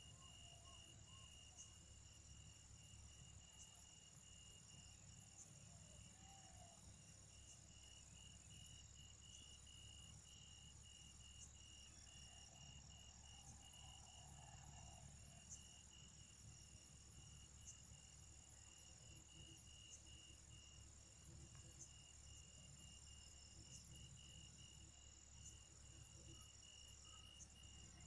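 Faint, steady chorus of crickets: a high, rapidly pulsing trill with a thinner, higher insect hum above it.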